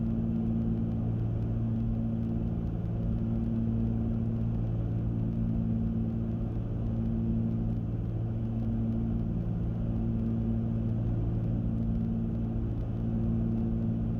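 Cessna 310Q twin piston engines and propellers droning steadily in the cabin at approach power, with gear and flaps down. One of the tones swells and fades every second or two, giving a slow throb.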